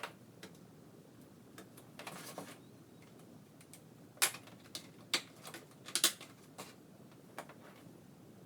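Irregular small plastic clicks and taps as DDR4 RAM sticks are handled and pressed into the motherboard's memory slots, with a brief rustle about two seconds in. The sharpest clicks come about four, five and six seconds in.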